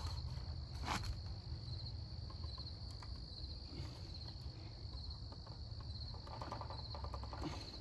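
Crickets chirping steadily over a low hum, with a single sharp click about a second in and faint handling rattles near the end.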